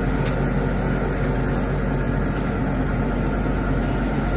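Burger patties sizzling on a grill grate over a steady low machine drone.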